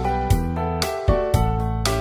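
Background music: a gentle keyboard melody with notes struck about twice a second.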